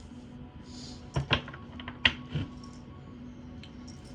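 A few sharp clicks and taps, about four within just over a second, the third the loudest, over soft steady background music.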